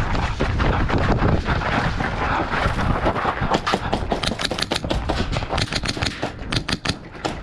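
Dense rustling movement noise on the microphone, then from about halfway airsoft guns firing in rapid bursts of sharp clicks with short pauses between them.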